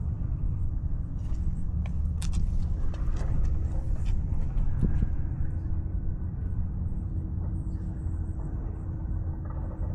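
Steady low rumble picked up by a cat collar camera's microphone, with a few faint clicks in the first few seconds.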